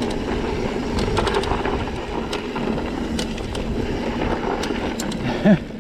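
Mountain bike rolling along a dirt trail: steady tyre and wind noise with scattered sharp clicks and rattles from the bike and loose stones. A short vocal sound near the end.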